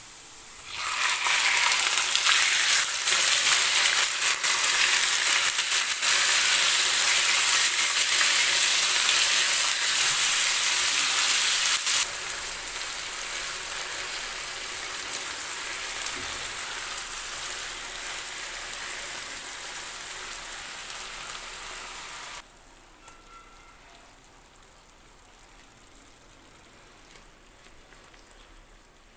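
Food frying in hot oil in a pan: a loud sizzle that starts suddenly, steps down about twelve seconds in and dies away, then drops off sharply to a faint sizzle about twenty-two seconds in.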